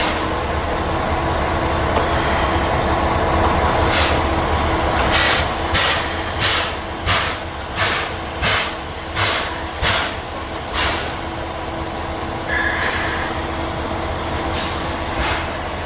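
C11 tank steam locomotive moving slowly under steam, its exhaust chuffing in even beats about one and a half a second over a steady hiss and hum. The beats stop after about eleven seconds, and a short hiss of steam follows.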